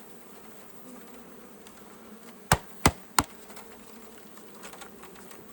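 A mass of honeybees from a package buzzing steadily, with three sharp knocks in quick succession about two and a half seconds in, and another at the very end: the wooden package being banged to shake the last bees out into the hive.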